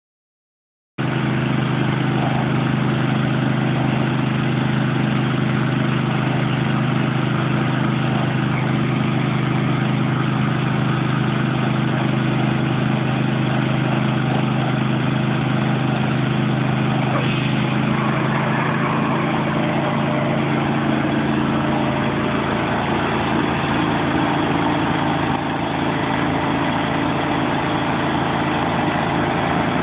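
Engine of a Terralift soil-fracturing machine running steadily at a constant speed, starting about a second in.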